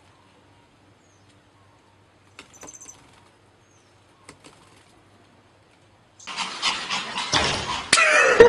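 A few faint, high chirps. About six seconds in, a loud, noisy scuffle begins, with a small dog yapping near the end.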